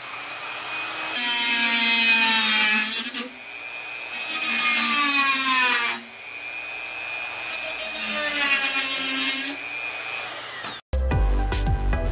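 Handheld rotary tool with a cut-off wheel spinning up with a rising whine and grinding through the steel wire rods of a small rack in three bursts, then winding down with a falling whine about ten seconds in. Near the end it cuts off abruptly and music with a steady beat starts.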